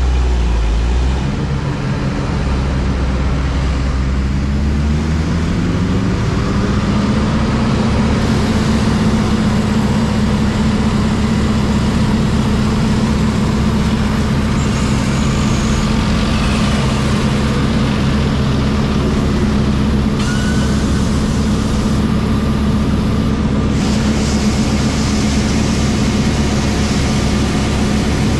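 Heavy diesel engine of harvest machinery, most likely the combine harvester, speeding up over a few seconds and then running steadily at working speed.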